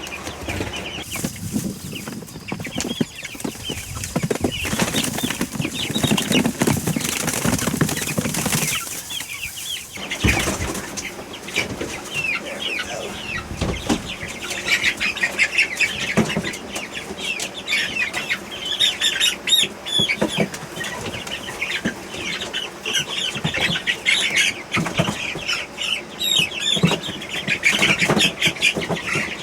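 A group of young chicks peeping constantly in many short, high chirps, with a stretch of wing flapping and scuffling a few seconds in.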